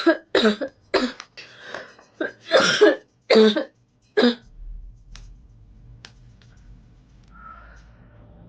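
A woman's smoker's coughing fit while smoking cigarettes: a rapid run of about eight harsh coughs that stops about four seconds in.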